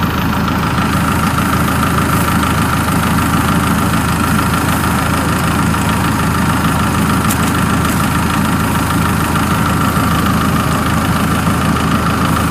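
Farm machine's engine running steadily, its pitch even throughout.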